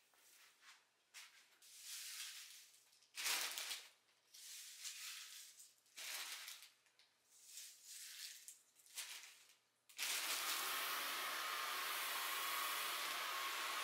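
A string of short, separate hissing swishes, then about ten seconds in a motor-driven household appliance with a fan, like a vacuum cleaner or hair dryer, switches on abruptly and runs with a loud, steady whirring noise.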